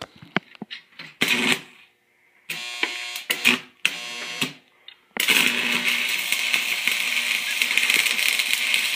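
Stick (arc) welder with a 6013 electrode striking an arc to run a test bead. There are a few short crackling bursts in the first five seconds, then about five seconds in the arc holds, with a steady crackling hiss.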